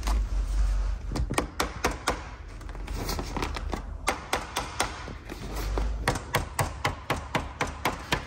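A run of sharp taps and clicks as the listing retainer on a Miata soft-top bow is pressed and clamped down by hand over the top's listing seam. The taps are irregular at first and come faster and more evenly near the end.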